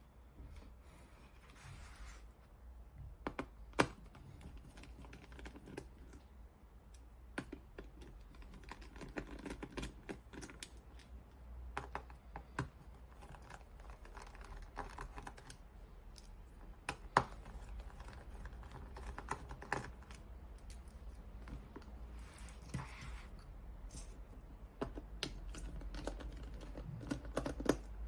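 Scattered light clicks, taps and rustles of hands working on a Launch X-431 Pro Mini scan tool's plastic case, its battery lead and a screwdriver, with sharper clicks about four seconds in and about seventeen seconds in.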